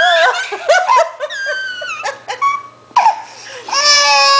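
A baby crying in short, high, broken sobs that bend in pitch, then a steady held sung note near the end.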